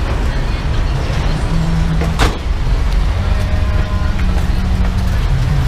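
Jeepney's diesel engine running, a steady low rumble that shifts slightly in pitch, with one sharp knock about two seconds in.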